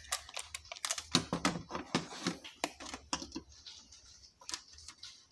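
Quick irregular clicks and light knocks of tools being handled on the TV's metal back chassis, as the multimeter and its test leads are set out for voltage checks. The clicks thin out after about three and a half seconds.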